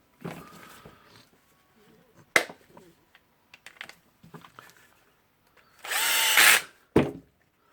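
Clicks and handling of plastic tool-housing parts as a rotary hammer's back cover is fitted, with a sharp click about two and a half seconds in. About six seconds in, a power tool runs in one short burst of under a second, followed by another sharp click.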